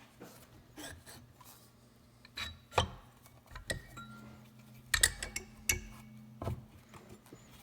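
Metal hand tools clinking and knocking against engine parts: a scattering of sharp clicks and clanks, the loudest about three and five seconds in.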